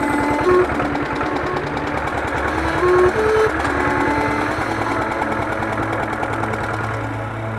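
An engine running steadily with a fast, even beat, with a simple melody of held notes playing over it.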